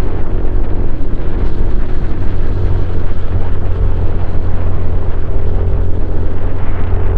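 Honda CRF150L's single-cylinder four-stroke engine running through a Norifumi Noctus T5 aftermarket exhaust, holding a steady pace with no big revs or gear changes.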